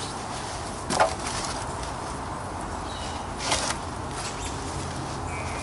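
A heavy sawn log being handled and set down on wooden pallets: a sharp wooden knock about a second in and a duller knock a few seconds later, over steady background noise.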